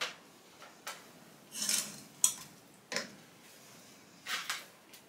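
Plastic clothes hangers clicking and scraping on a wardrobe rail while garments rustle: a handful of separate short clicks and rustles at irregular intervals, the sharpest about two seconds in.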